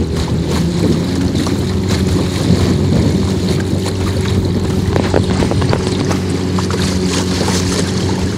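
Outboard motor of a wooden riverboat running steadily under way, a constant hum over water and wind noise on the microphone.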